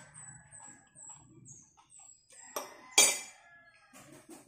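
A small bird chirps in short, very high notes, about three a second, over the first two seconds. About three seconds in comes a loud two-part sneeze, a short intake and then the sudden loud burst, caught in a tissue.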